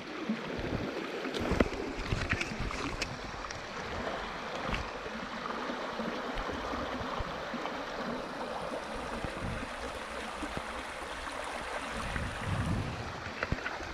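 Shallow rocky stream running steadily, with a few small splashes and knocks from wading and from a hand moving in the water in the first few seconds.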